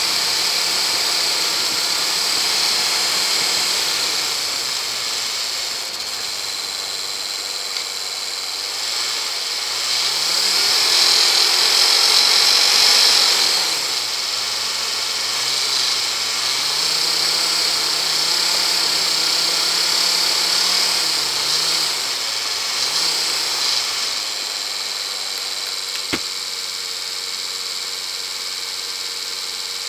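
Land Rover engine heard from a bonnet-mounted camera, its revs rising and falling repeatedly as it drives, then settling to a steady idle about 24 seconds in as the vehicle stops. A steady high hiss lies over it, and there is a single sharp click near the end.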